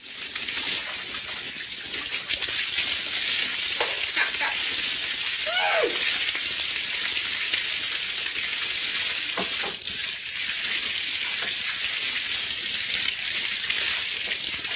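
Water spraying from a leaking pipe, a steady hiss, with a short gliding cry about six seconds in.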